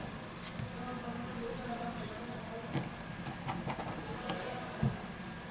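Scattered small clicks and taps as hands and tools handle the parts of an opened smartphone being reassembled, with a low knock about five seconds in, over a faint steady hum.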